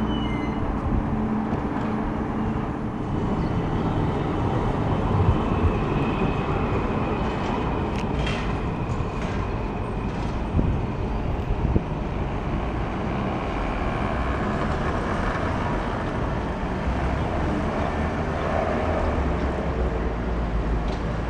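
Electric street trams with steady running noise. Near the end a deep rumble builds as a Ganz KCSV6 tram rolls past close by.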